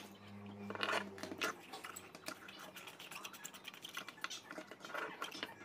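Small plastic clicks and scrapes from an LED bulb being handled, its LED board and plastic housing pressed and turned in the hands. A faint low hum runs under the first second and a half.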